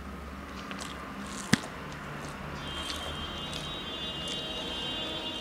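Close-up eating sounds: fingers squishing and mixing cooked rice on a steel plate, with wet chewing and smacking. One sharp click about a second and a half in.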